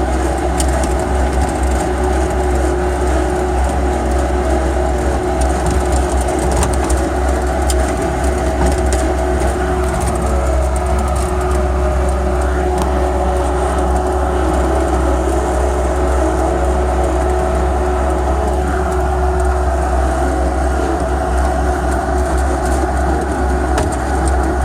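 Bobcat S185 skid steer's four-cylinder diesel engine running steadily at high throttle as the machine is driven, a loud constant drone with a deep rumble underneath.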